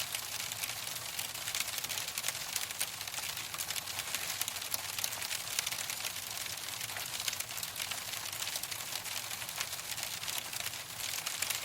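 Hail falling: a dense, steady stream of small ticks and clicks over a continuous hiss.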